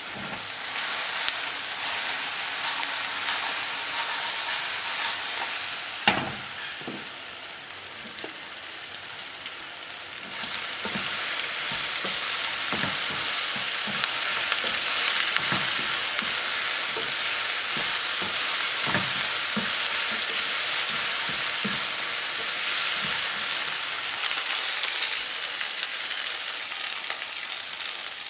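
Chicken fillets frying in hot oil, a steady sizzle with scattered knocks of a utensil in the pan. A sharp knock comes about six seconds in, the sizzle drops for a few seconds, then grows louder again about ten seconds in.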